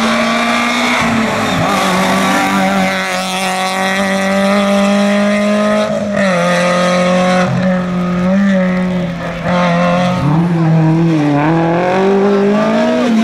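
Rally car engines at high revs on a tarmac stage, several clips in a row: a steady high-revving note, a change of car and pitch about six seconds in, then revs falling and rising through gear changes from about ten seconds in, with some tyre squeal.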